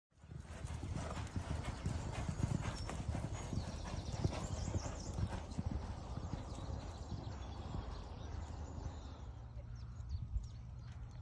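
Hoofbeats of a galloping horse, a fast, continuous run of thuds that grows fainter after about nine seconds.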